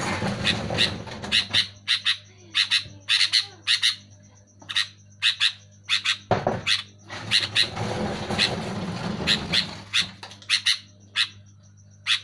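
Sooty-headed bulbul (kutilang) calling loudly: a busy string of short, sharp notes in quick bursts, broken by two longer noisy stretches at the start and around eight to ten seconds in.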